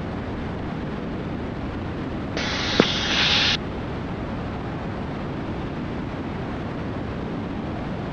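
Steady in-flight cabin noise of a Cessna T310R, its twin turbocharged piston engines droning. About two and a half seconds in, a sharp-edged burst of hiss lasting about a second, with one click.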